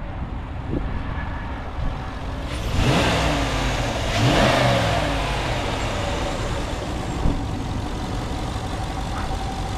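A Ram 2500 pickup's gasoline HEMI V8 idling steadily, blipped up in revs twice, about three and four and a half seconds in, each time settling back to idle.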